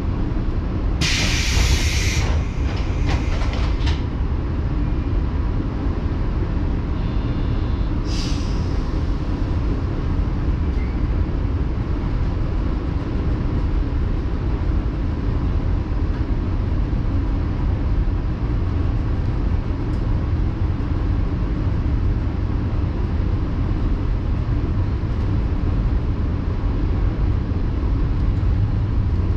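Interior sound of a JNR 113 series electric train heard from just behind the driver's cab: a steady low rumble throughout, with a short hiss about a second in and another briefer one about eight seconds in.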